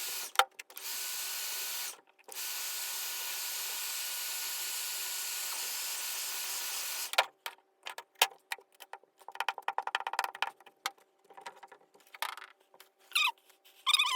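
Heat gun blowing a steady hiss, heating a plastic fender flare for repair. It stops for a moment about two seconds in, runs again, then switches off about seven seconds in. After that come scattered light clicks and taps.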